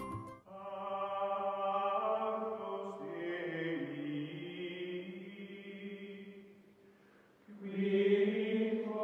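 Outro music of long held chords: one fades out after about six seconds, and a second begins near the end.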